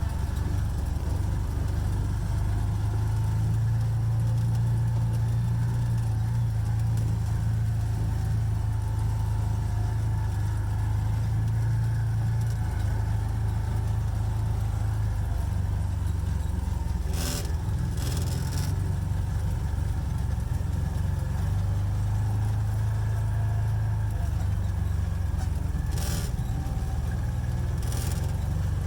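Vehicle engine running steadily with a low drone that holds level throughout. Four short sharp knocks or clicks come in the second half.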